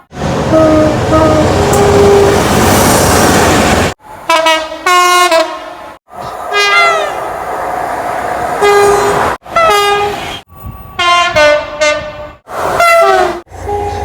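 Train horns on British locomotives and multiple units, in several short clips cut together. The first few seconds hold a passing train's loud rumble with short horn notes over it; after that come repeated two-note horn blasts, high then low, some sliding down in pitch as the train goes by.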